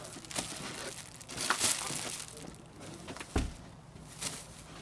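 Plastic-wrapped packs of toilet paper and paper towels crinkling and rustling as they are handled and shifted, with a dull thump about three and a half seconds in.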